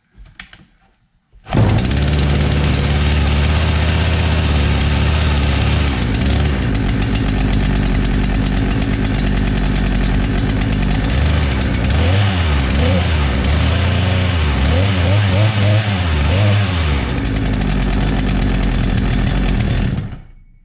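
Poulan Pro PP4218A two-stroke chainsaw engine starting up about a second and a half in and running just after a new cylinder and piston were fitted. Its speed wavers up and down in the middle stretch: it runs a little rough, which the owner puts down to the carburettor needing adjustment. The sound cuts off abruptly near the end.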